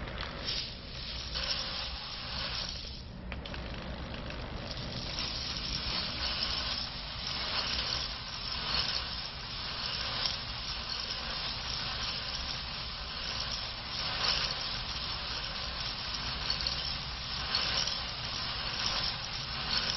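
Raw coffee beans tumbling and rattling inside a rotating stainless-steel mesh strainer roasting drum, making a continuous dense rustle with a brief dip about three seconds in. A steady low hum runs underneath, from the electric drill that turns the drum.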